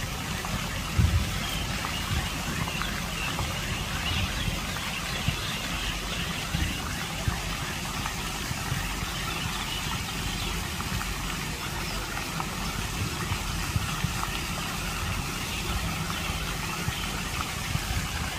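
Lake fountain jets splashing steadily into the water, a continuous hiss of falling spray over a low rumble.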